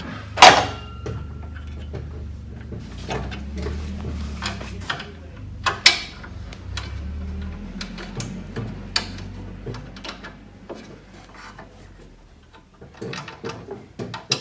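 Metal clicks and clanks of a hand tool tightening the fasteners on the rail of a Bodycraft SCT400g, with a sharp knock about half a second in and another near six seconds.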